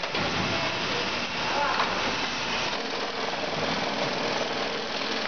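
Automatic dog-food bag-filling and packing machine running, a steady mechanical din without a clear beat.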